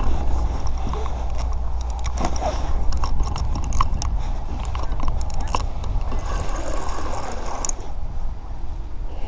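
Daiwa Regal Bite and Run spinning reel clicking rapidly as a hooked carp is played, over a steady low rumble.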